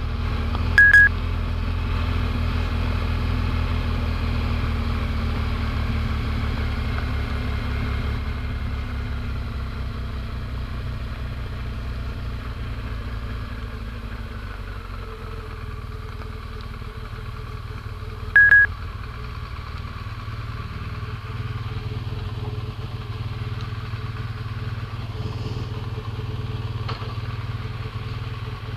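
Motorcycle engine running steadily at low speed, a low rumble heard from the rider's helmet camera. Two short electronic beeps cut through it twice, well apart, the first about a second in.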